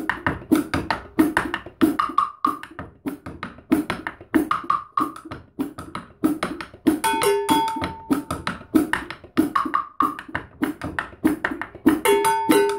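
Drumsticks playing a steady beat on a small drum kit, sharp strokes several times a second on drum and cymbals. A ringing metallic tone joins briefly about seven seconds in and again near the end.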